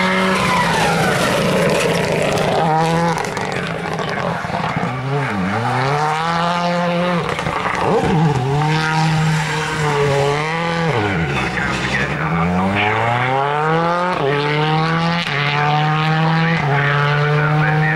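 Ford Focus rally car's engine revving hard, its pitch climbing and dropping over and over as the driver works the throttle through gear changes. Under it the tyres squeal and scrub as the car slides with wheelspin.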